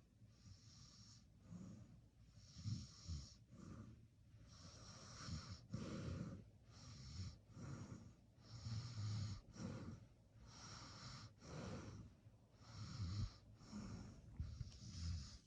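A sleeping person snoring, one raspy breath after another every second or two, each with a low rattling rumble and a hiss.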